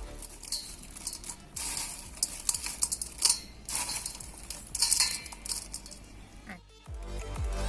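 A spoon stirring and tossing crisp fried potato chivda in a metal vessel: irregular clinks and rustling scrapes.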